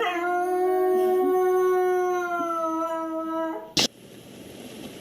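A dog howling: one long, steady note held for about three and a half seconds. A sharp click follows shortly after it ends.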